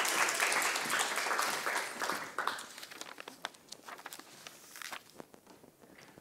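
Audience applause fading out over the first two and a half seconds, followed by a few scattered footsteps and rustles.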